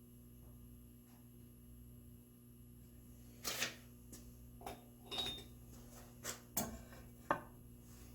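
A few light clicks and knocks of hand tools and wood being handled on a workbench, starting about three and a half seconds in, one with a brief metallic ring. A steady electrical hum runs underneath.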